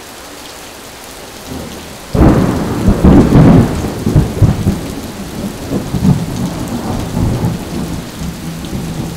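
Rain falling steadily. About two seconds in, a sudden loud clap of thunder breaks in and rumbles on for several seconds, fading unevenly.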